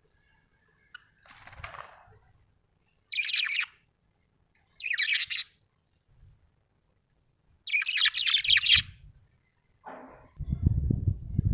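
Budgerigar chirping in three short, bright bursts of rapid chirps, about two seconds apart. Near the end a low rumbling noise comes in.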